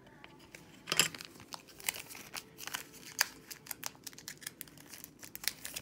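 Crinkly plastic packaging being handled and pulled open: a dense run of sharp crackles, with one loud crack about a second in.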